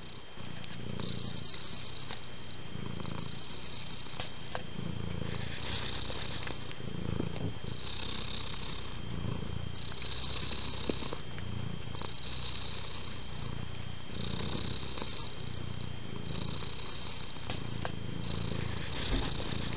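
Tabby cat purring close to the microphone, a continuous rumble that swells and eases in a cycle of about two seconds as it breathes in and out. A faint steady high-pitched tone runs underneath.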